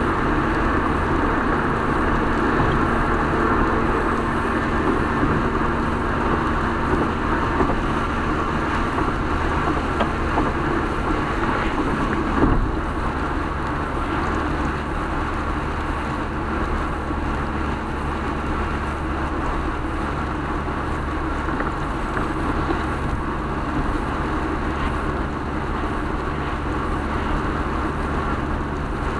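Steady road noise heard from inside a moving car: tyres running on wet pavement with a low engine hum. A brief thump comes about twelve seconds in.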